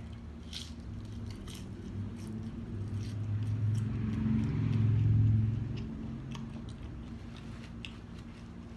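A person chewing French fries close to the microphone, with scattered faint crunching clicks. Under it a low rumble swells to its loudest about five seconds in and then fades.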